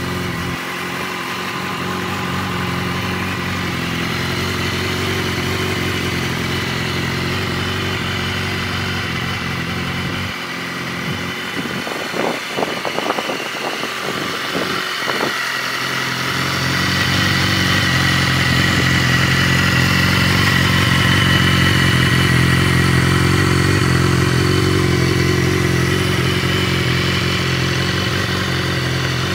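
BMW S1000RR's inline-four engine idling steadily, with a short unsettled stretch of quick sharp sounds near the middle before it settles again, a little louder.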